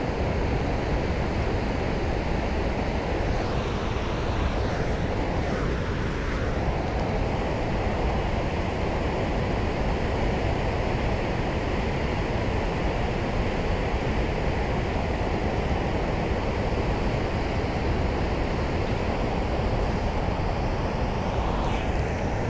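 Steady rush of turbulent tailwater churning below a dam. A few light clicks near the end as the spinning reel is handled.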